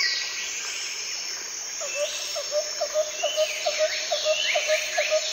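Birds calling, with high sliding and chirping notes, joined about two seconds in by a short low chirp that repeats about three times a second and quickens slightly.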